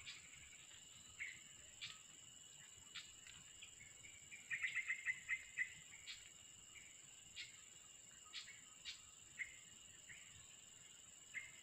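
Faint tropical forest ambience: a steady high-pitched insect drone with scattered short chirps, and a quick run of chirps about four and a half seconds in.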